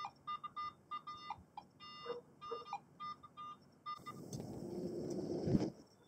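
Metal detector giving a string of short, irregular beeps at one steady pitch as it sweeps over buried metal targets, stopping after about three and a half seconds. A scraping, rustling noise then grows for about two seconds and ends in a knock.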